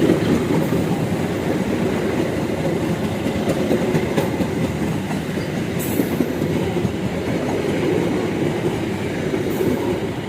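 Parcel train rolling past at close range: a steady rumble of steel wheels on the rails, with a few sharp clicks at about 4, 6 and 9.5 seconds in.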